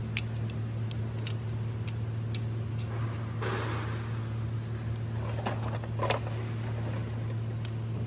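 Light clicks and knocks of metal drive belt tensioners being handled, with a brief rustle in the middle, over a steady low hum.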